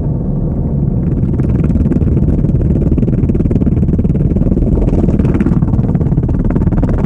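Automatic car wash heard from inside the car: a dense low rumble with rapid clattering against the body, swelling about a second in and then holding steady.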